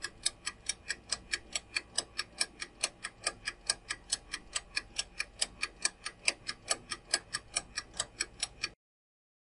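Quiz countdown-timer ticking sound effect: evenly spaced clock-like ticks, about five a second, counting down the time left to answer. It cuts off abruptly near the end when the time runs out.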